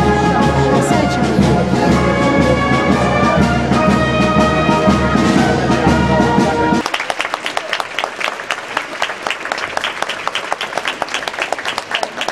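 A brass band playing held chords and a melody; about seven seconds in it cuts off abruptly and a crowd applauds.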